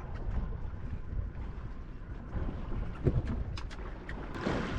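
Wind buffeting the microphone over a low rumble on a small boat at sea, with a few short knocks in the second half and a louder rush of noise near the end.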